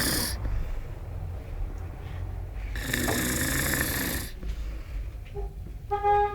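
Snoring: one long, noisy snore breath about three seconds in, over a steady low rumble. A brief high-pitched squeak comes near the end.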